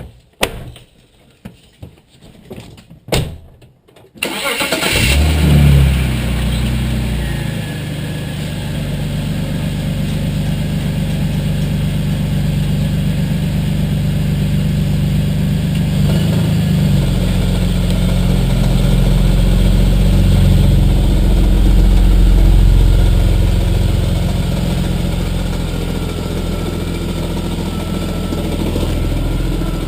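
A few light clicks, then the 2001 BMW 330i's 3.0-litre straight-six cranks and starts about four seconds in, rises briefly and settles into a steady idle.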